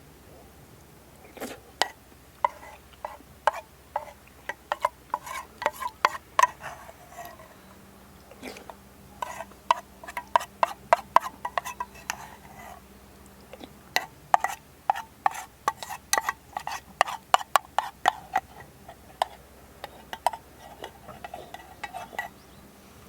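A spoon stirring and scraping in metal camp cookware, quick clinks and taps coming in three spells with short pauses between.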